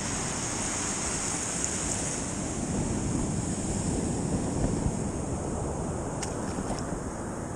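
Sea surf breaking and washing in over a shallow sandy beach, with wind buffeting the microphone. The wash swells about halfway through, and a couple of faint clicks come near the end.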